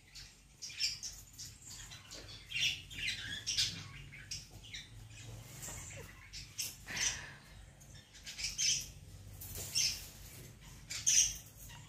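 Pet dogs whimpering and squealing in short, high, irregular cries: excited greeting whines at their owner's return.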